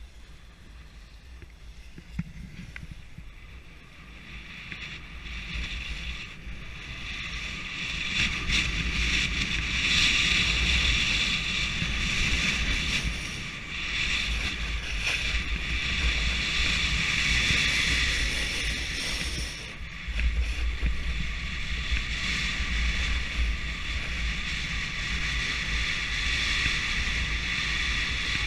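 Snowboard sliding and scraping over groomed snow, with wind rumbling on the camera microphone. It builds up over the first several seconds as the run picks up speed and drops briefly about two-thirds of the way through.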